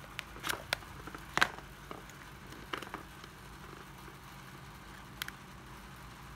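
Scattered sharp clicks and knocks from a 12V cordless drill/driver being handled, about seven in all, the loudest about a second and a half in, over a low steady hum.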